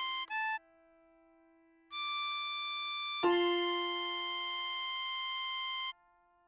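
Harmonica melody over piano chords. After a short note and a brief pause, the 7-hole blow note (C6) is held for about four seconds. A new piano chord strikes about three seconds in.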